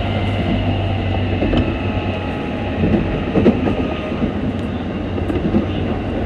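Keikyu electric train set 1485 running, its traction motors giving a steady deep hum with thin whining tones above it over the rolling rumble, and a few sharp wheel clicks on the rails. The motor sound has changed on this set: louder than the usual Toyo Denki motors, which the uploader takes for a possible Mitsubishi motor.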